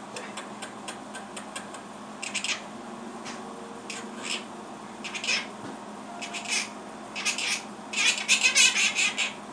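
Quaker parrot (monk parakeet) calling and chattering its mimicked words in a row of short, high-pitched bursts. It gets busier and louder toward the end, with a quick run of loud chatter near the end.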